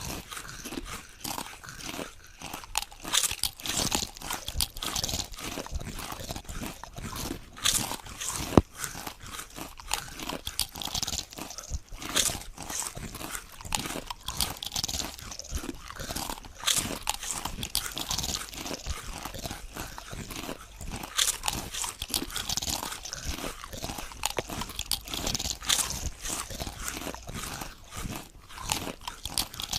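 Potato chips being bitten and chewed: a continuous, irregular run of crisp crunches, with one sharper crack about nine seconds in.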